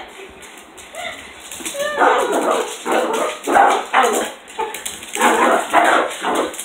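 Dachshund barking about once a second at its own reflection in a mirror.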